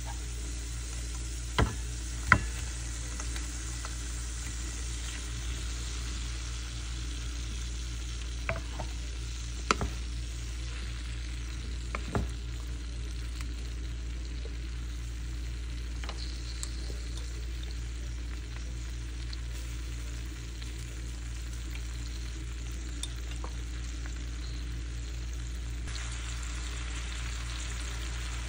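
Garlic and dried chillies sizzling in oil in a clay tagine, a steady frying hiss over a low hum. A wooden spatula knocks sharply against the clay pot five times in the first half.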